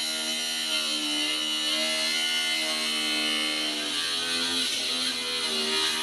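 Electric angle grinder running under load, its disc grinding into a steel axle end; the whine wavers in pitch as the disc bites.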